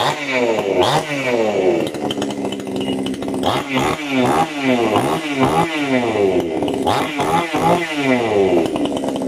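Two-stroke chainsaw with its bar and chain removed, running and being revved up and down again and again, the engine pitch rising and falling in quick blips.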